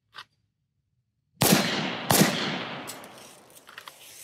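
Two gunshots about 0.7 s apart, fired as a reactive double on a shot timer's start signal, each trailing off in a long echo. A few faint cracks follow near the end.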